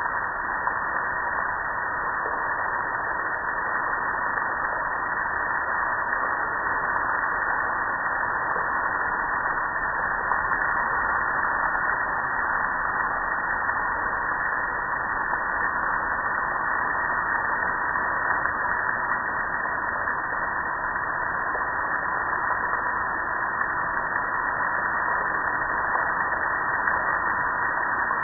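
Water pouring and splashing steadily onto a gas grill and the concrete beneath it, a constant rushing with no breaks.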